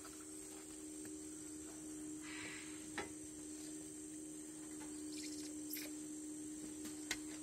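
Steady high-pitched insect drone over a steady low hum, with a brief rustle and a couple of faint clicks.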